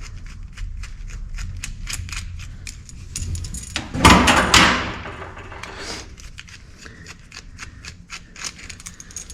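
Metal hose clamps being handled and fitted, giving many quick metallic clicks and rattles, with a louder scraping rattle about four seconds in.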